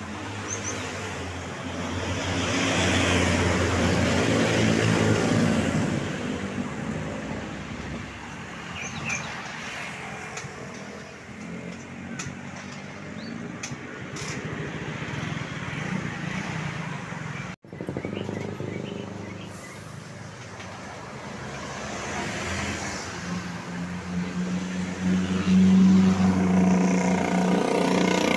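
Road traffic passing close by, buses among it. Two loud pass-bys, one in the first few seconds and a longer one near the end, carry a steady low engine drone.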